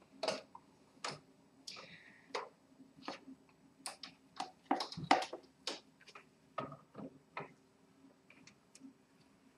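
Irregular plastic clicks and knocks as continuous-ink-system cartridges and their tubing are handled and fitted into an inkjet printer's cartridge holder, the loudest about five seconds in and fainter towards the end. A brief rustle of plastic packaging comes about two seconds in.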